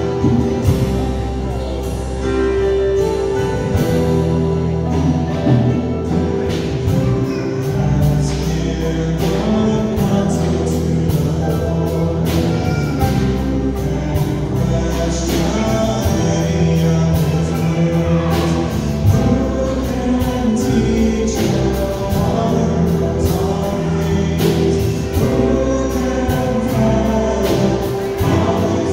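A worship band with acoustic guitar plays a hymn while a congregation sings along together.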